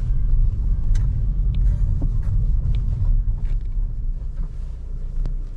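Steady low road rumble of a moving car, with a few faint clicks.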